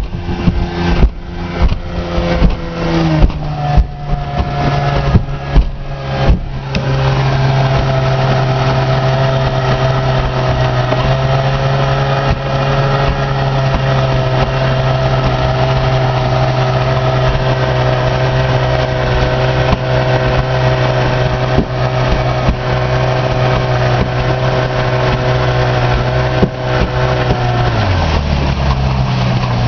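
1969 Johnson 20 hp two-cylinder two-stroke outboard running at cruising speed, pushing a small runabout across a lake. Over the first few seconds there are repeated sharp thumps from the hull meeting waves, and then the engine settles into a steady drone. Its pitch drops a little about three seconds in and again near the end, as the throttle is eased back.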